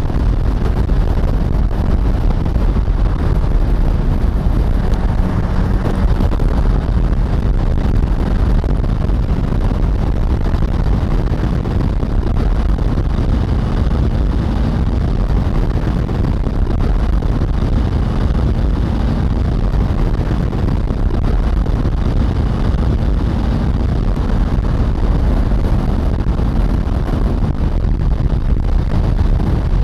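Steady wind noise buffeting the microphone of a moving motorcycle, with the Bajaj Dominar's single-cylinder engine running underneath at a steady speed.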